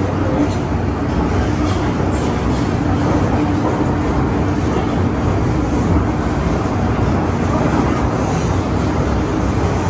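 MTR M-Train electric multiple unit running through an underground tunnel, heard on board: a steady rumble of wheels on rail with a low, even motor hum.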